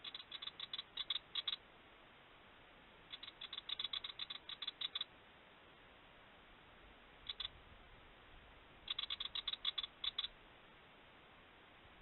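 Willie wagtail's harsh scolding chatter: rapid runs of dry, clicking chit notes, three runs of about a dozen notes each with a short double note between the second and third.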